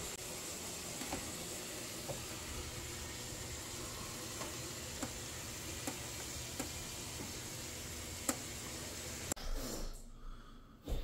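Hot oven with a pizza baking inside: a steady hiss with a faint high tone and occasional sharp ticks, cutting off abruptly about nine seconds in.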